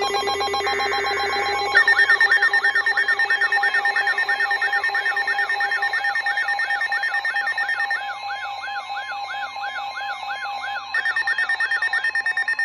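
Emergency Alert System tornado-warning alert tone: a loud, steady electronic alarm with a fast, even warble, announcing the warning. About two seconds in it takes over from a shorter buzzing signal, and it changes slightly twice before cutting off.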